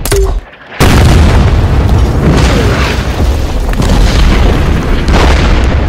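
A heavy explosion bursts in about a second in, right after a brief moment of quiet. Its loud, deep rumble then keeps going as a steady roar of noise.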